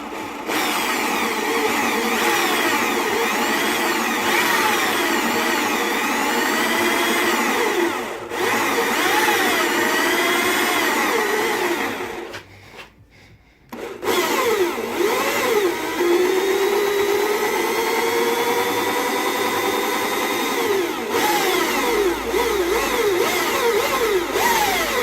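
Electric drill boring out spot welds in car body steel with a worn, blunt bit: a continuous grinding screech full of squealing pitch glides, easing off briefly twice, with the longer stop about halfway through before drilling resumes.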